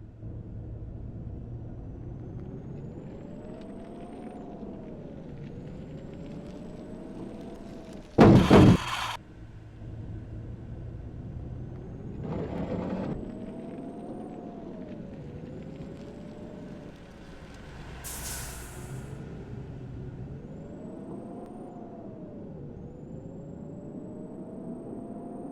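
Vehicle engine running under a low rumble, with a whine that rises and falls about every two seconds. A loud bang comes about eight seconds in, and a short hiss a little past the middle.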